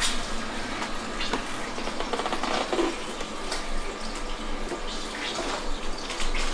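Bacon sizzling and crackling in a frying pan, with a sharp knock right at the start.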